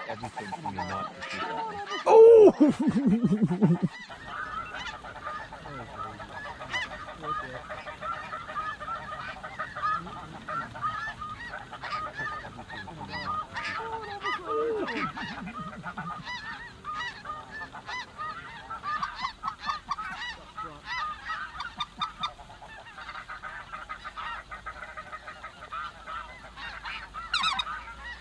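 A flock of snow geese calling: a dense, continuous chatter of short high-pitched honks. A louder call slides down in pitch about two seconds in and again about fourteen seconds in.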